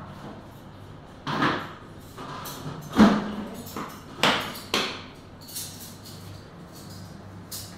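A few separate knocks and thumps, the sharpest about three seconds in, over a low steady hum.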